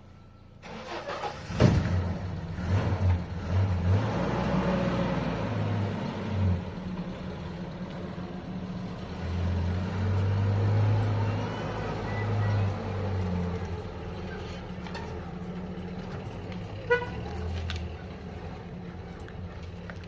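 A car's engine running, swelling and easing, after a sharp knock about a second and a half in.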